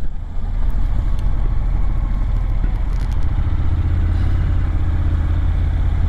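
Motorcycle engine running steadily as the bike is ridden along a winding road, heard from on board the bike.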